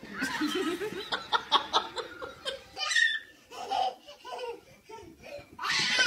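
People laughing in short, rhythmic bursts.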